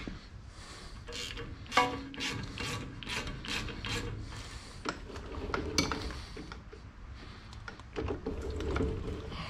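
Hand work on metal machine parts: irregular clicks and knocks with scraping and rubbing between them, and brief squeaks about two seconds in and near the end.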